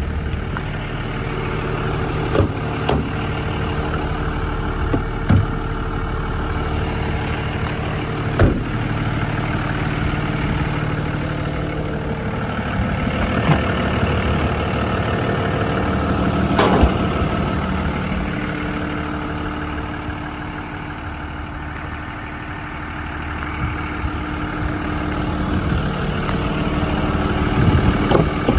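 Diesel engine idling steadily, with several short knocks or clicks over it.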